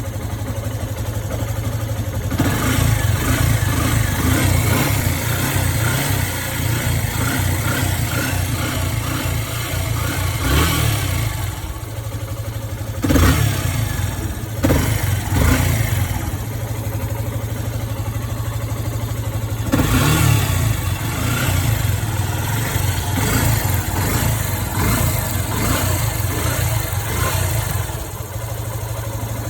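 Yamaha FZ-S V3 motorcycle's single-cylinder engine idling, with the throttle blipped several times so that it revs up and drops back.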